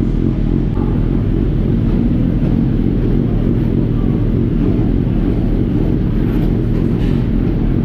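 Race motorcycle engine idling steadily, a low, even rumble.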